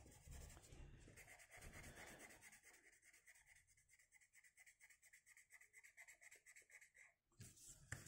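Faint scratching of a coloured pencil shading on paper in quick back-and-forth strokes, with a brief louder rustle near the end.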